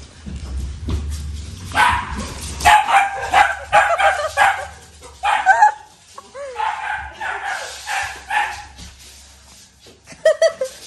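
A dachshund whining and yipping in a long run of short, high calls that bend up and down, then a lull and a few more calls near the end.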